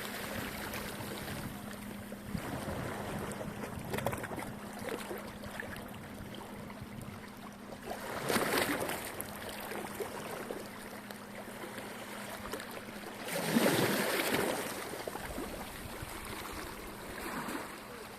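Small sea waves washing ashore in a calm sea, a steady wash with a louder wave breaking about eight seconds in and another around fourteen seconds in. A faint steady hum sits under it and stops about thirteen seconds in.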